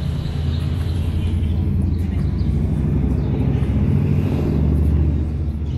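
A motor vehicle's engine running close by in street traffic: a low, steady rumble that grows a little louder about four seconds in, then eases off near the end.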